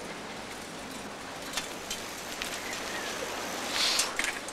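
Bicycles rolling over cobblestones: a steady rushing noise with a few light ticks and rattles. It swells briefly near the end as the riders pull up.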